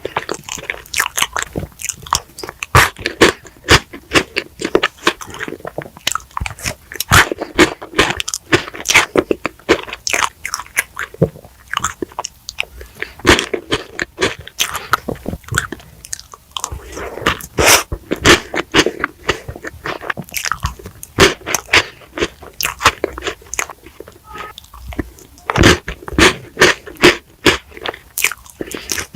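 Close-miked ASMR eating: a dense run of crunchy bites and chewing on chocolate treats.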